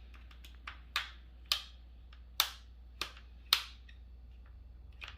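Sharp plastic clicks, about six at irregular intervals: the Asus ROG Zephyrus G14's bottom cover being pressed down and snapped onto the laptop's chassis.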